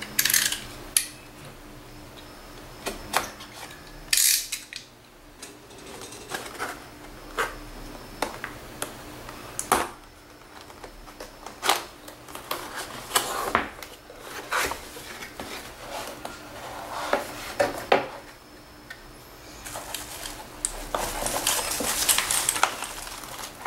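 Cardboard keyboard box being handled and opened: scattered knocks, taps and scrapes of cardboard and packaging, some sharp and crisp. In the last few seconds, a stretch of steady rustling as the foam wrapping around the keyboard is handled.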